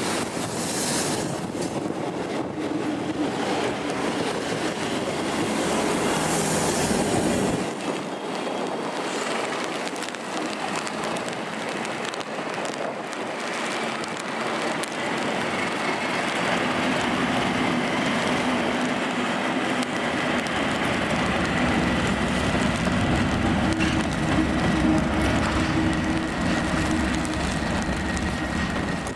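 East Midlands Railway Class 158 diesel units running away over the points, then a Class 37 diesel locomotive approaching: its English Electric V12 engine running and getting louder, with wheels clattering over the pointwork and a steady high whistle in the later part.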